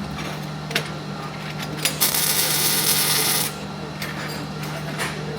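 Welding arc crackling and hissing in one short burst of about a second and a half, starting about two seconds in and stopping abruptly. A few sharp clicks come before and after it, over a steady low hum.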